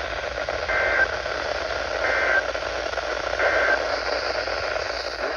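Weather-radio static hiss with three short two-tone data bursts about a second apart. These are Emergency Alert System SAME code bursts, and each is brief enough to be the end-of-message signal.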